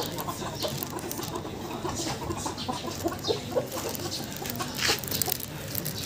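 Several Silkie chickens clucking softly, with many short, scattered clucks overlapping, and a few brief scratchy noises among them, the loudest about five seconds in.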